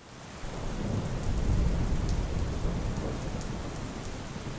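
Rain ambience: steady rain fading in over the first half second, with a low roll of thunder that is strongest about one to two seconds in and then eases into the rain.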